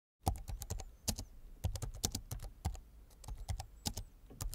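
Computer keyboard typing sound effect: a run of quick, irregular key clicks, roughly four or five a second.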